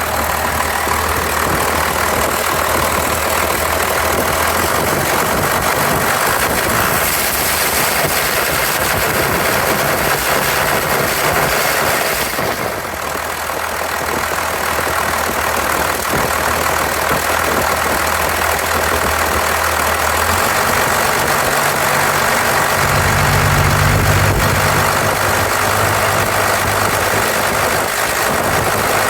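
1993 Dodge D250's 12-valve Cummins 5.9 L inline-six diesel idling steadily with an uneven misfire. The owner has already ruled out the injectors, lift pump, shutoff solenoid, valve lash and compression, and suspects the injection pump.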